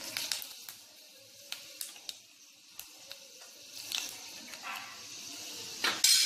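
Fenugreek seeds frying in hot oil: a steady sizzle with scattered crackles and pops, and a louder burst of noise near the end.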